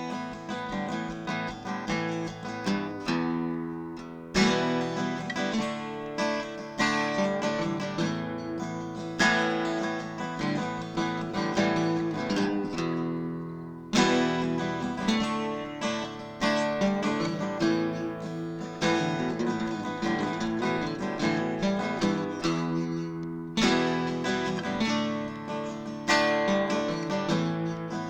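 Acoustic guitar music, plucked and strummed, with chord changes every few seconds.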